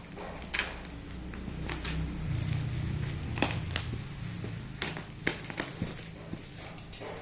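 Rifle scope box and packaging being handled: a run of sharp, irregular clicks and taps, with a low rumble of handling noise for a couple of seconds in the middle.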